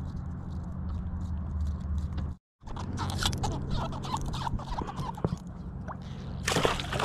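Fishing line being hand-hauled with small rustles and clicks over a low steady rumble, then about six seconds in a hooked eel breaks the surface and thrashes, splashing loudly beside the boat.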